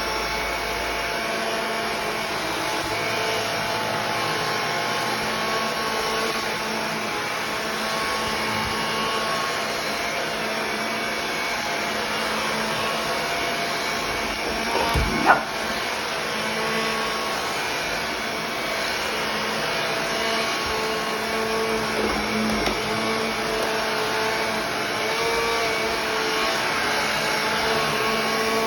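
Vacuum cleaner running steadily, with one sharp, loud sound about halfway through.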